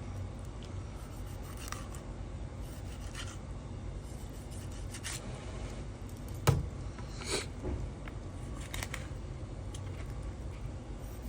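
Knife cutting slits into a whole red snapper: scattered short scraping cuts, with one sharp knock about six and a half seconds in.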